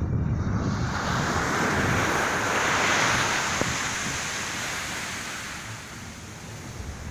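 Sea surf: a wave breaks and rushes up the sand, swelling to a peak about three seconds in and then fading away.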